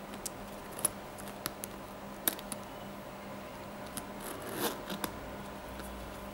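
Metal zipper on a suede sneaker being handled: small clicks and ticks of the zipper pull, with a short rasp of the zipper teeth after about four seconds. A faint steady hum runs underneath.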